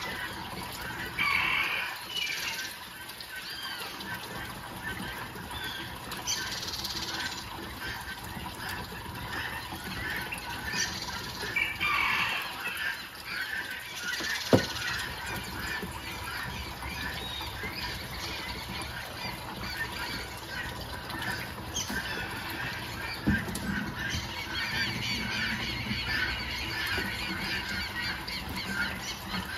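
Birds calling and squawking over and over, with a single sharp knock about halfway through and a dull thump a little later.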